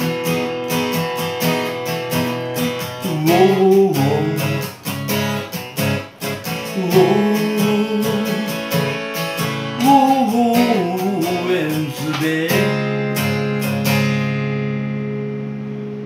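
Capoed steel-string acoustic guitar strummed in a steady rhythm, with a wordless wavering melody line coming and going over the chords. About fourteen seconds in the strumming stops and the last chord rings on and fades.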